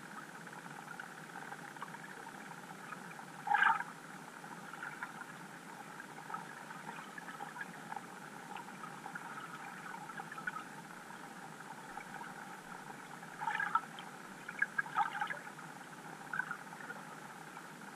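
Underwater ambience picked up by a GoPro inside its waterproof housing: a steady hiss with a few short crackling bursts, one about three and a half seconds in and several more near the end.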